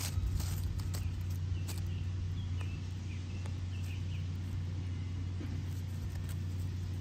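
A steady low mechanical hum throughout, like a distant engine or machine running. Over it, soft rustling and clicks of dry leaves and mulch as a puppy paws and mouths at a leather football, and a few short high chirps in the first half.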